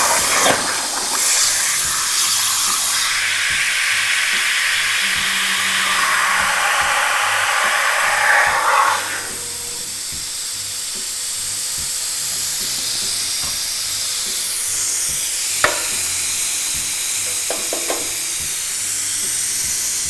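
Hypertherm Powermax plasma cutter on a CNC table finishing a cut in sheet steel: a loud hissing arc that stops about nine seconds in. After that the torch's air keeps hissing, with a couple of faint clicks.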